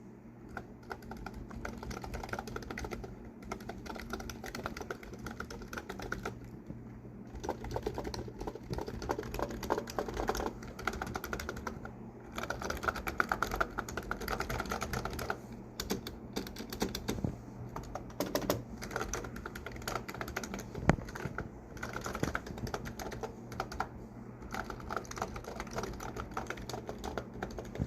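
Continuous typing on a BTC 5339 keyboard with BTC tactile foam-and-foil switches, o-rings fitted on the sliders for a deeper, thockier keystroke, with a few brief pauses.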